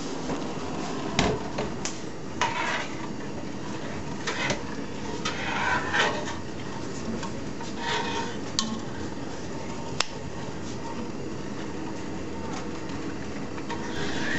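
Metal spoon clinking and scraping against a stainless steel pot as a milk mixture is stirred on a gas stove: scattered separate clinks and knocks over a steady low hum.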